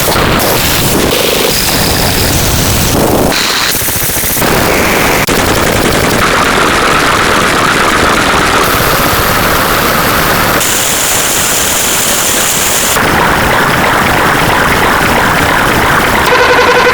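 Loud, harsh noise that switches abruptly to a different texture every one to two seconds, some stretches carrying a steady high tone: a rapid string of distorted sound effects.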